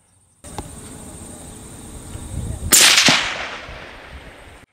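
A single shot from a suppressed .223 Remington bolt-action rifle about two and a half seconds in: one sharp crack that fades away over about two seconds.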